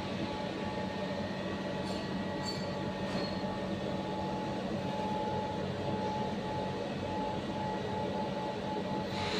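MIG welding: a steady buzzing noise over a constant low hum.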